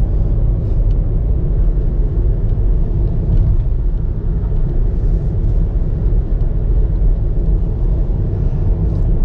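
Steady low rumble of a car being driven along the road: tyre and engine noise with no break or change.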